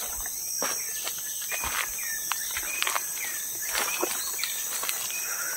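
Footsteps crunching on a forest trail, with insects buzzing steadily at a high pitch and a bird giving short repeated chirps.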